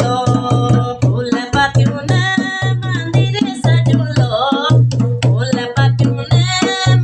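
Dholak played in a steady folk rhythm, deep bass strokes about three a second mixed with sharp treble slaps, with a woman singing over it.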